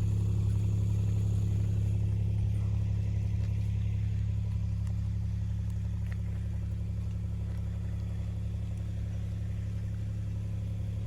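A vehicle engine running steadily, a constant low drone.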